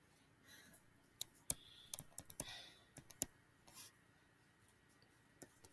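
Faint, irregular sharp taps and light scratches of a stylus writing on a tablet screen, a dozen or so clicks spread unevenly.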